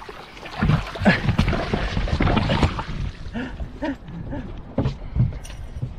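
Water splashing and knocking as an Atlantic sharpnose shark thrashes in a landing net being brought aboard a small boat, busiest in the first few seconds, with wind on the microphone and short bits of voice later on.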